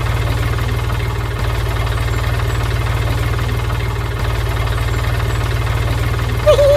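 An engine idling steadily with a fast, even low throb.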